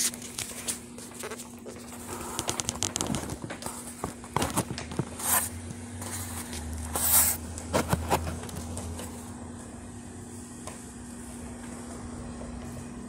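HP DesignJet T2300's built-in scanner pulling a large-format drawing through, with a steady hum. Paper rustling and crackling runs through the middle few seconds, including two brief sharp swishes.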